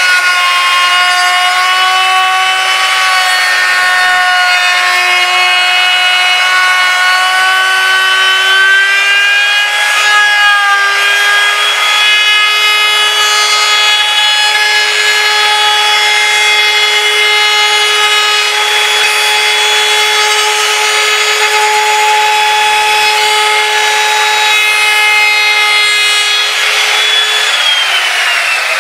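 High-pitched whine of an electric woodworking power tool running on pine boards, wavering slightly in pitch as the load changes. Near the end it is switched off and winds down with a falling whine.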